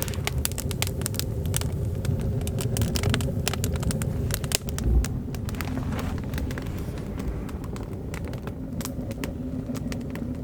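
Wood fire burning hard in a stone stove, crackling with many sharp irregular pops over a steady low rumble.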